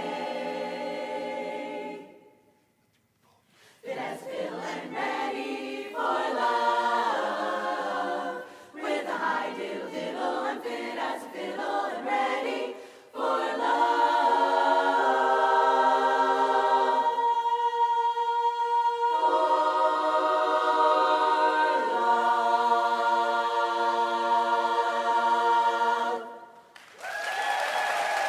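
Women's a cappella chorus singing in harmony, breaking off briefly for a moment of silence a few seconds in, then holding a long sustained chord through much of the second half.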